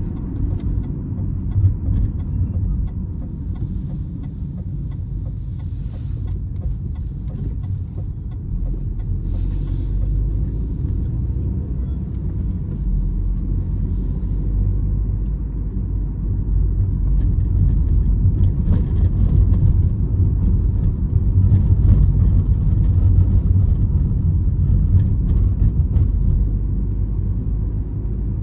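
Opel Astra H being driven: a steady low rumble of engine and road noise, growing gradually louder past the middle.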